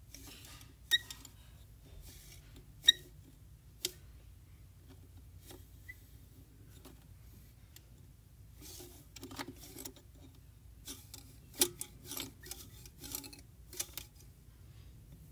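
Etch A Sketch knobs being turned in short spells, the stylus scratching lines on the screen: three sharp clicks with a brief ring in the first four seconds, then a quick run of short scratchy bursts in the second half, over a low steady hum.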